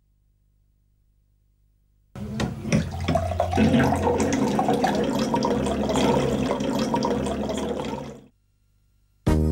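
Water running from a water dispenser's tap into a drinking glass. It starts about two seconds in, runs steadily for about six seconds, and stops shortly before the end.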